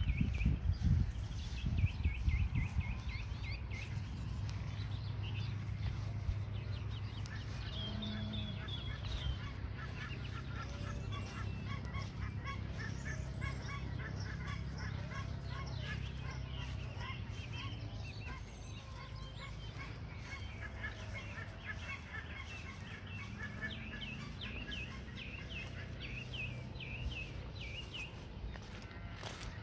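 Birds calling, many short calls repeated again and again, over a steady low rumble.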